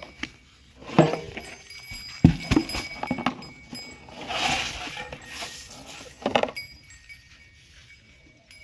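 Murrah buffalo stirring, with metallic clinks and several sharp knocks, and a breathy rush of noise about halfway through.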